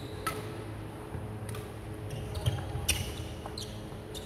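Badminton rally: rackets striking the shuttlecock in several sharp taps, the strongest about two and a half and three seconds in, with short sneaker squeaks on the wooden court floor. A steady low hum runs underneath.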